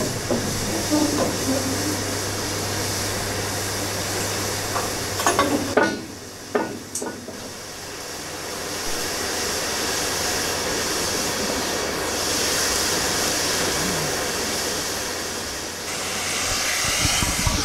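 GWR Castle Class steam locomotive 4079 Pendennis Castle standing in steam, giving a steady hiss of escaping steam that grows louder in the second half.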